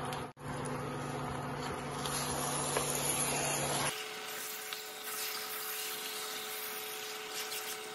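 Steady hum of a kitchen extractor fan over the stove. About four seconds in, after an edit, the sound changes to an even hiss with a higher steady tone as raw beef pieces are stirred into the hot spiced onion masala in the pot.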